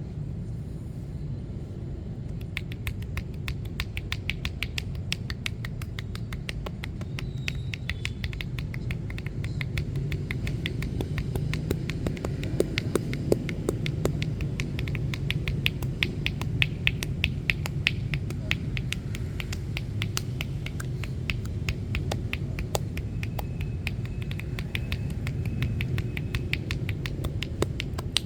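Massage hands working on bare skin, making a fast run of sharp little slaps and clicks, several a second, that starts a couple of seconds in, over a steady low hum.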